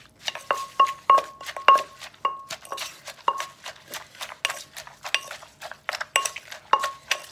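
Wooden pestle pounding shredded green papaya in a clay mortar while a plastic spoon turns it over, tossing it to mix for papaya salad. The strokes come about three a second, and many carry a short ringing clink.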